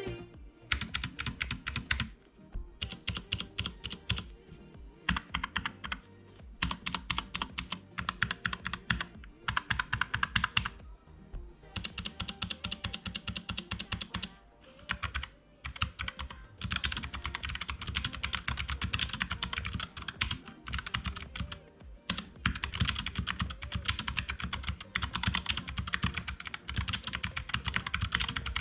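Typing on a NuPhy Air75 low-profile mechanical keyboard with Gateron low-profile switches: runs of rapid key clicks broken by short pauses.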